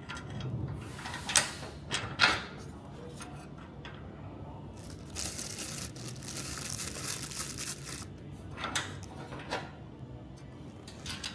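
Hand assembly of aluminium roof-rack parts with coach bolts: two sharp metal knocks and clinks in the first couple of seconds, a rustling scrape lasting about three seconds in the middle, then a few lighter knocks near the end.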